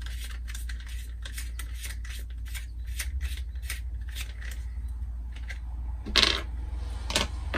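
Small clicks and plastic rattles as an old 12 V USB charging socket is worked out of its plastic mounting bracket by hand. There is a louder scrape about six seconds in and another about a second later, over a low steady hum.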